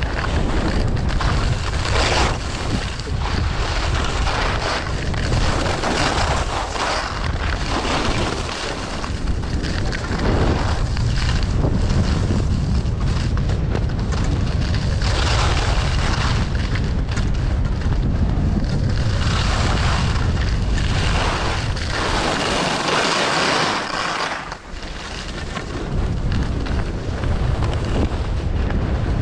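Wind buffeting the microphone of a skier's camera during a fast downhill run, with the hiss and scrape of ski edges on hard-packed snow swelling every second or two as the skier turns.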